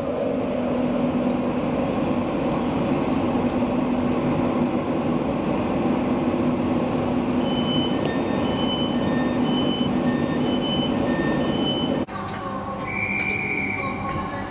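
LNER Azuma (Hitachi Class 800-series) multiple unit running slowly past a platform with a steady drone and hum. In the second half a repeating two-tone beeping sounds over it. Near the end the sound changes abruptly to a standing train, with a brief high tone.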